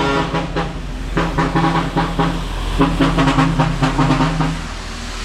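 Heavy vehicle, most likely a truck, running close by: a steady engine drone with a rapid rhythmic clatter from about a second in, easing off near the end.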